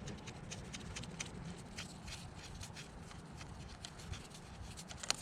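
Faint, irregular clicks and taps of small metal parts and tools being handled, over a steady low hum, with one sharper click near the end.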